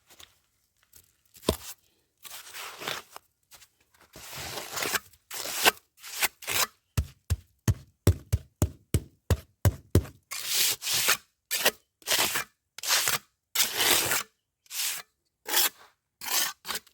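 Sand-cement mix being scraped and shovelled into a steel block mould, then packed down by hand in a quick run of short thuds, about three to four a second, followed by a series of short scraping strokes.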